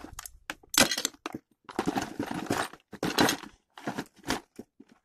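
Hand tools rattling and knocking in a plastic toolbox tray as a hand rummages through it and shifts the tray: a string of short clicks and clatters with a scraping stretch in the middle.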